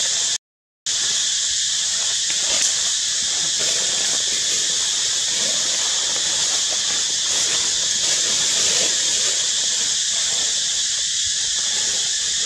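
Steady, high-pitched drone of a cicada chorus that drops out for about half a second near the start.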